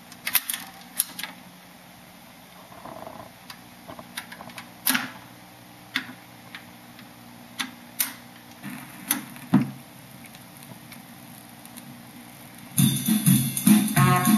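BSR-built Fisher C-20 record changer cycling after its start lever is pressed: a string of mechanical clicks and clunks as the record drops and the tone arm swings over and sets down, over a steady low hum. Music from the record starts playing near the end.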